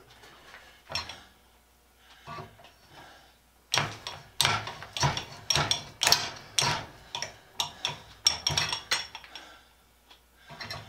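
Miller Falls No. 120 hand-cranked breast drill boring into steel. After a near-quiet start with a couple of clicks, a rhythmic run of sharp metallic clicks and scrapes, about three a second, begins about four seconds in. The bit has reached a weld in the steel, so the cut is harder going.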